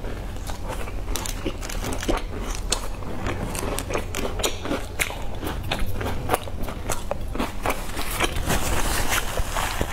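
A person chewing crunchy biscuit close to a clip-on microphone: dense, irregular crunching and crackling, over a steady low hum.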